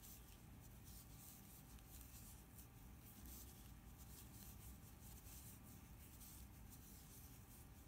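Faint, soft scratching and rustling of yarn drawn through stitches by a crochet hook during single crochet, over near-silent room tone.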